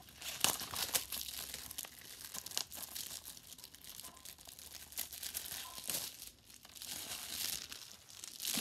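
Plastic packaging crinkling and rustling as a Blu-ray case is handled, a continuous crackle of many small clicks.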